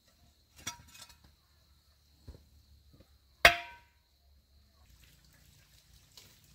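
Objects being handled and knocked together. There is a short clatter about a second in and a soft knock, then one sharp, loud knock with a brief ring about three and a half seconds in. Faint outdoor background follows.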